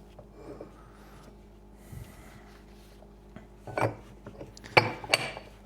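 Steel parts of a clamshell bearing puller being handled and fitted on a differential carrier bearing: light rubbing and scraping, then a few sharp metal clinks near the end.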